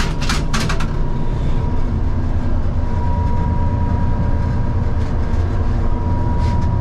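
Old passenger train running along the line, heard from inside the carriage: a steady low rumble from the running gear, with a few sharp clicks or rattles in the first second and a faint steady high whine.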